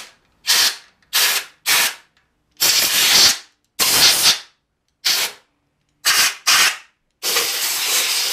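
A series of about nine sharp hissing spray bursts with silence between them. Most are short, a few last nearly a second, and the last and longest is cut off suddenly at the end.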